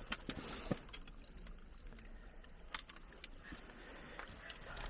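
A few faint taps and clicks of icicles being knocked and broken, over a quiet background of dripping meltwater.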